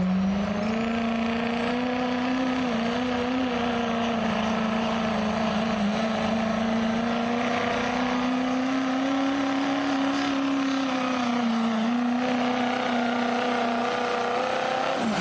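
Chevrolet Silverado's Duramax diesel V8 at full throttle, pulling a weight-transfer sled. Its note climbs in the first second and holds high and steady through the pull, then drops off near the end as the pull finishes.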